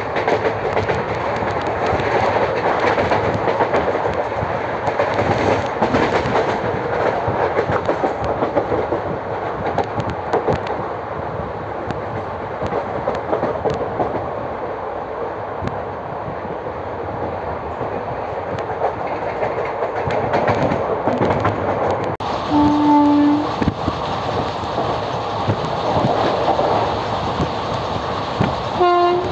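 Indian Railways express train running at speed, heard on board: a steady rumble with the clatter of wheels on the rails. A short horn blast sounds about 23 seconds in, and another brief tone comes near the end.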